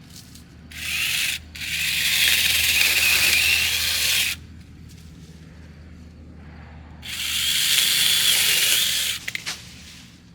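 Battery-powered 6-inch mini chainsaw running in short bursts: a brief run, then a longer run of about three seconds, then another of about two seconds near the end.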